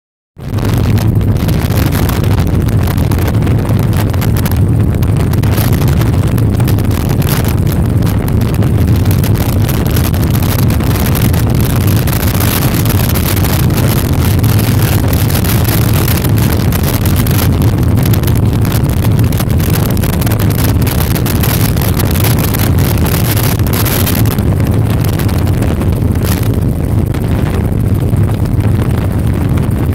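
Helicopter engine and rotor noise heard from inside the cabin in flight: a loud, steady drone with a strong low hum and a rushing hiss above it.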